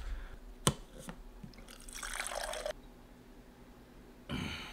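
A sharp click, then water pouring into a cup for about a second. A short breathy sound comes near the end.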